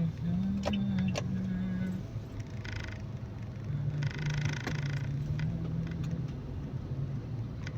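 A man humming a tune in a low voice over the steady rumble of a moving car's cabin, with a few light clicks and rattles.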